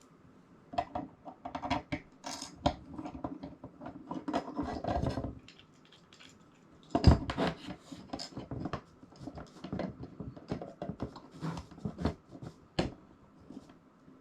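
Bolts and hardware being handled during assembly: a run of clicks, clinks and scraping, with one louder knock about seven seconds in.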